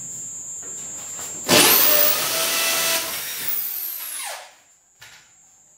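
Corded electric drill starting suddenly and running at a steady speed for about a second and a half, then winding down with a falling whine after the trigger is released.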